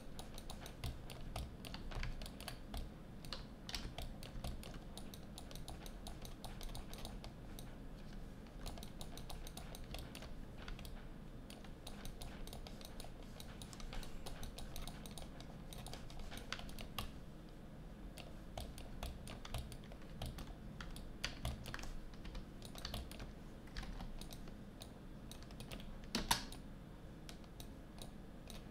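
Irregular clicks and taps of a computer keyboard and mouse used for digital sculpting, scattered throughout, with one louder click near the end.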